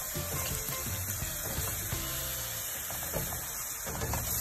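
Hot sugar water poured slowly into water chestnut flour roasted in ghee, sizzling in the hot pan as a silicone spatula stirs it through.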